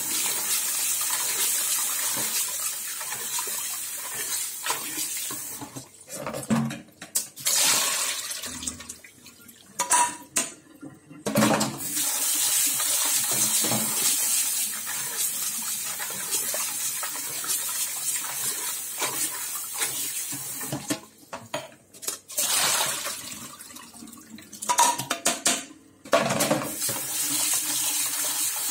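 Cold water running from a kitchen tap into a saucepan of rice noodles in a stainless steel sink as hands rinse the noodles, with clinks of the pan. The stream breaks off briefly several times.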